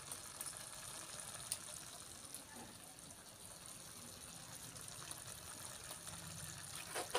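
Faint simmering of a mushroom and tomato curry in an iron kadai over a wood fire, with a few small crackles and a sharper click about seven seconds in.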